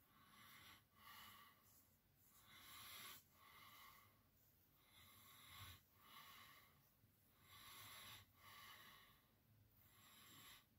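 Straight razor with a damascus steel blade scraping stubble off a lathered face in short strokes, about nine strokes, each under a second. Faint.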